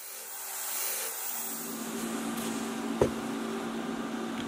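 Small power sander grinding down weld spots on the steel wheel-house panel: a steady motor hum under a grinding hiss. There is a brief knock about three seconds in.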